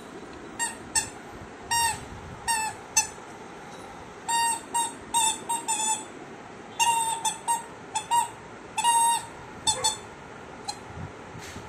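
A puppy biting and chewing a squeaky toy, squeezing out a string of short squeaks at irregular intervals, a few held a little longer; the squeaking thins out near the end.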